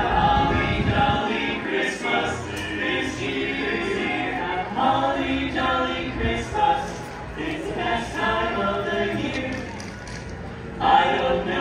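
Barbershop quartet of male voices singing a cappella in close four-part harmony, sustained chords with short breaks between phrases.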